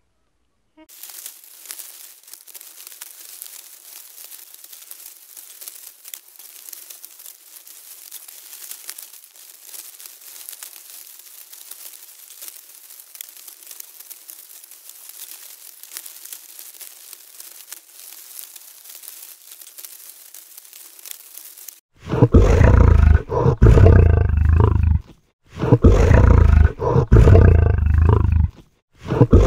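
A faint, steady crackling rustle for about the first twenty seconds, then a male lion roaring loudly in several long, deep bouts with short breaks between them.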